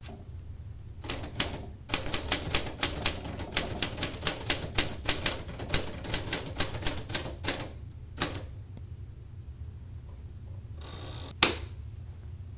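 Smith-Corona Silent portable typewriter being typed on: a quick, even run of key strikes, each type bar clacking against the paper, for about seven seconds, then one more strike. Near the end a short rasp ends in a sharp click.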